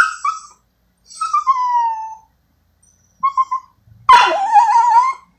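Dog whimpering in a string of high-pitched cries: a short cry, a falling whine, three quick yips, then a louder, longer, wavering whine near the end.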